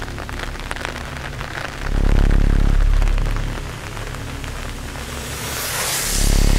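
Rain falling steadily on a wet asphalt road: a dense hiss full of small drop ticks. A deep low drone swells up about two seconds in and again near the end, where a rising whoosh of hiss also builds.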